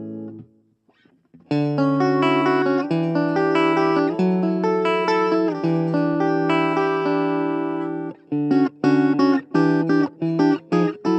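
Suhr Classic Pro electric guitar played clean through a Blackstar Fly 3 mini amp. A chord rings out and dies away, and after a short pause come ringing, sustained notes and chords. From about eight seconds in the playing turns to short, choppy staccato chords.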